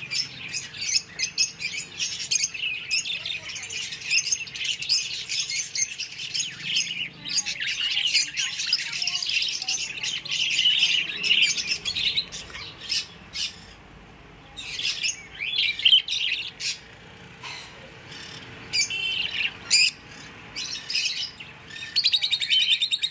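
A mixed flock of caged pet birds, budgerigars, lovebirds and finches, chirping and chattering together in a dense run of short, high calls with a few brief lulls. Near the end comes a fast, repeated trill.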